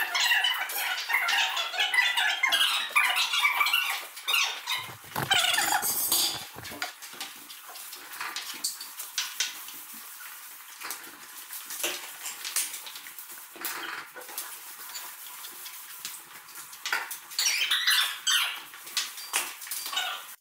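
Brooms sweeping a concrete floor: irregular scratching strokes, busier in the first few seconds and again near the end.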